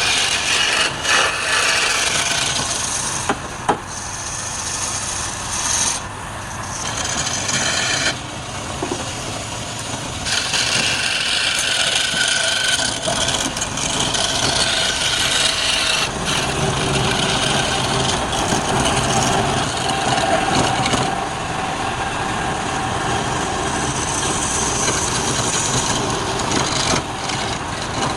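Wood lathe running while a turning tool cuts and scrapes the spinning wood: a continuous rough scraping hiss that shifts in tone as the cut changes. The lathe's motor hum shows underneath in the second half.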